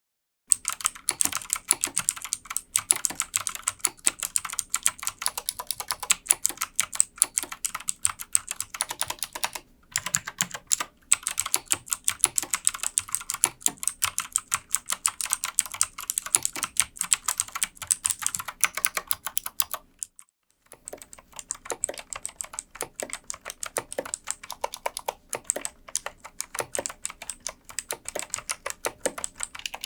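Actto mechanical keyboard with blue (clicky) switches being typed on quickly and continuously: a dense run of sharp key clicks, with a brief pause about two-thirds of the way through.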